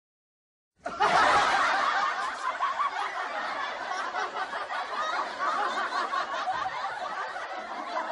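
A laugh track of many people laughing, cutting in suddenly about a second in, loudest at the start and then going on at a steady level.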